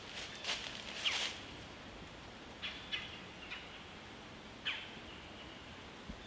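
Dry fallen leaves crunching under a white-tailed buck's hooves: a few sharp steps in the first second or so, then a handful of fainter scattered crunches.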